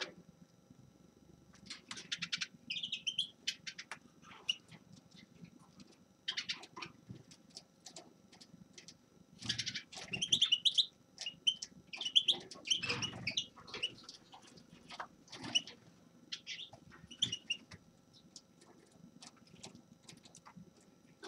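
A small finch singing in short bursts of rapid twittering chirps and trills, broken by pauses, loudest about halfway through. Faint clicks and light rustling come between the phrases.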